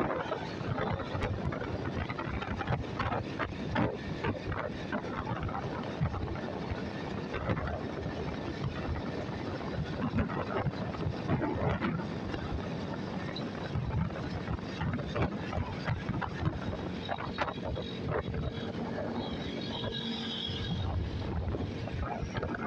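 Wind buffeting the microphone over the steady running and road noise of a moving vehicle, with gusty rumbles throughout.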